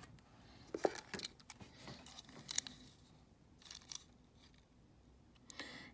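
Faint, irregular clicks and taps of a small Hot Wheels diecast toy truck being handled in the fingers, a few sharper clicks standing out.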